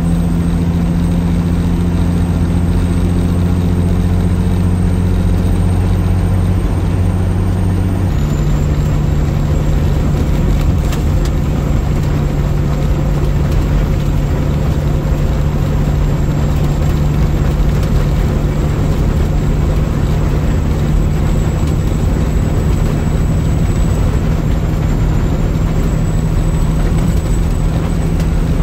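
A Peterbilt semi-truck's diesel engine drones steadily, heard from inside the cab while cruising at highway speed, with road noise underneath. The drone steps slightly lower in pitch about eight seconds in.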